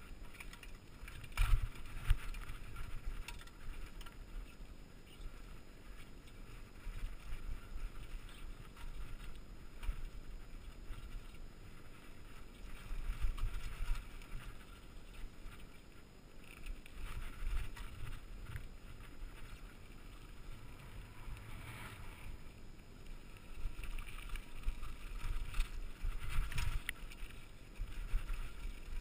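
Mountain bike descending rocky dirt singletrack, heard through a helmet-mounted GoPro: wind rumble and the rattle of the bike over rocks and ruts, with two sharp knocks about one and a half and two seconds in and rougher patches of rattling later on.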